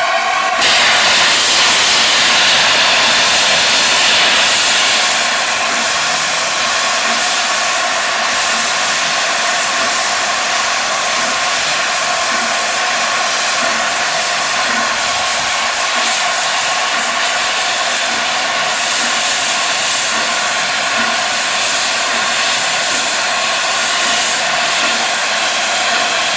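Safety valves of LNER A4 Pacific steam locomotive No. 60009 blowing off, a very loud steady hiss of escaping steam that starts suddenly about half a second in, with faint steady tones in it. The engine is standing at full boiler pressure while it prepares to depart.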